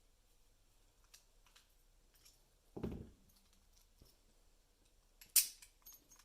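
Small metal clicks and taps from a reassembled heavy brass lock being handled, with a dull knock about three seconds in and a sharp metallic click near the end.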